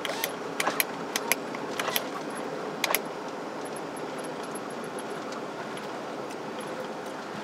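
Steady road and engine noise inside a moving car, with a quick run of sharp clicks and rattles in the first three seconds.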